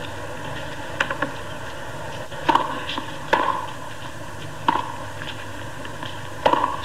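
Tennis rally: the ball struck back and forth with rackets and bouncing on the court, a sharp pock every second or so, over the steady hiss of the broadcast sound.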